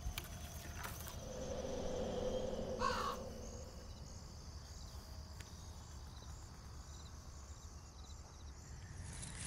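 Crow cawing over faint woodland ambience.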